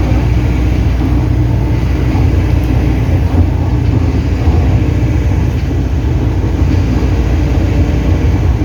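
Steady engine and road noise inside a moving bus, a loud low rumble with an even hum.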